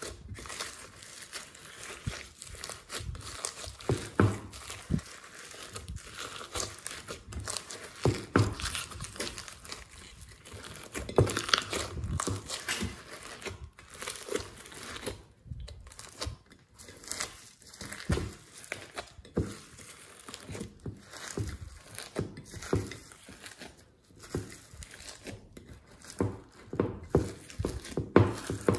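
Hands squeezing and kneading glossy slime loaded with foam beads, sprinkles and glitter: a continuous run of irregular sticky clicks and crackles, with a few louder pops.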